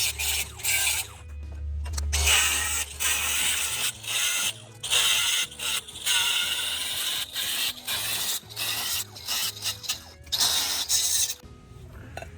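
Tool work on steel exhaust pipe being cut and shaped for side pipes: a run of short, irregular mechanical strokes that stop about a second before the end, with background music underneath.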